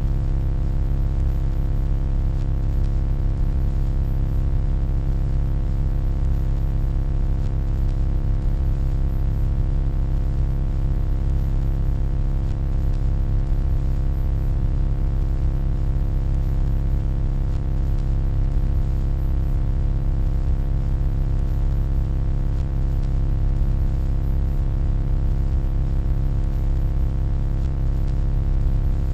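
Steady electronic hum: a deep low drone with a stack of fainter steady tones above it and a light hiss, unchanging throughout.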